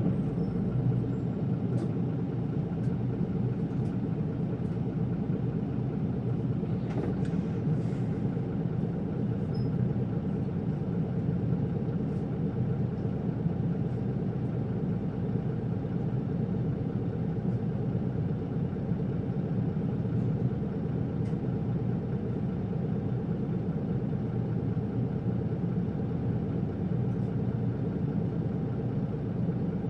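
Isuzu Erga city bus's straight-six diesel engine running steadily, a low even drone with rumble, heard from inside the passenger cabin, with a few faint clicks.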